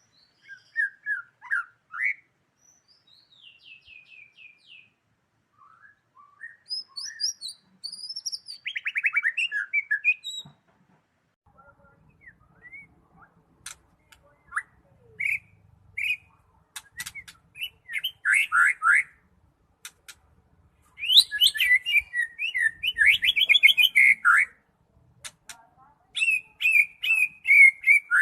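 White-rumped shama (murai batu, Medan type) singing a varied song of short whistled phrases and rapid trills, broken by sharp clicking ticks. The song grows louder and denser in the second half.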